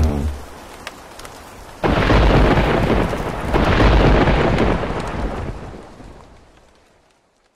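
Thunder-and-rain sound effect: a hiss of rain, then a sudden thunderclap about two seconds in and a second rumble a moment later, dying away to nothing near the end.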